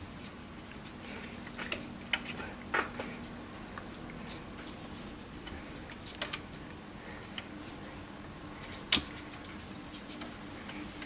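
Light scattered clicks and taps of snowblower chute-control cable ends and a small repair part being handled and fitted together by hand, the sharpest click about nine seconds in, over a faint steady hum.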